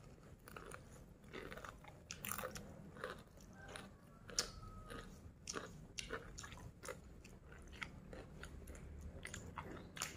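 Person chewing a mouthful of rice up close, with irregular short clicks and smacks of the mouth a few times a second.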